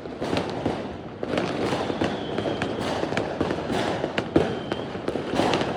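Fireworks going off: a continuous crackle of many pops and bangs, with one louder bang a little past four seconds in.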